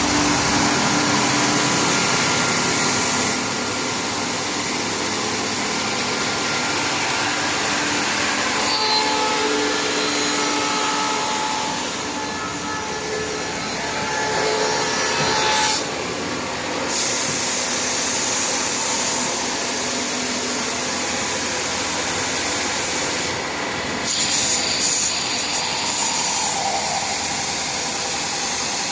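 Thickness sanding and grinding machine running, its sanding belt or roller grinding a panel with a steady rushing noise and faint whining tones. The noise eases slightly about three seconds in and shifts again around sixteen and twenty-four seconds in, as the load on the machine changes.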